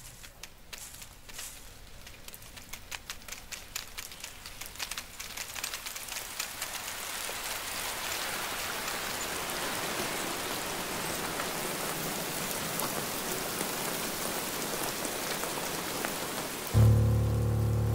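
Rain beginning to fall: scattered separate drops at first, thickening over several seconds into a steady downpour. Near the end a low sustained musical note enters suddenly, over the rain.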